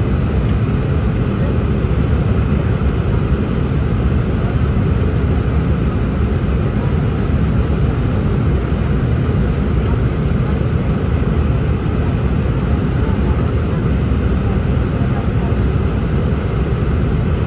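Steady, loud cabin noise of an Embraer 195-E2 in flight, heard from a seat beside the wing: the Pratt & Whitney PW1900G geared turbofan running and air rushing past the fuselage, an even low rumble with no changes in pitch.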